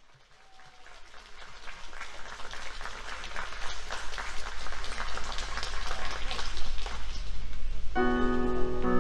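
Audience applauding, growing louder over the first several seconds. About eight seconds in, a keyboard comes in with sustained chords, opening the song.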